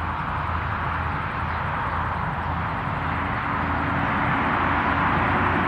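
Distant diesel freight train passing: a steady rumble of locomotive engine and rolling wheels with a low hum underneath.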